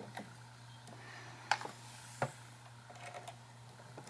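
Small sharp clicks, two clear ones about three-quarters of a second apart near the middle, from fingers working the needle clamp screw and needle of a Baby Lock Aspire sewing machine. A low steady hum runs underneath.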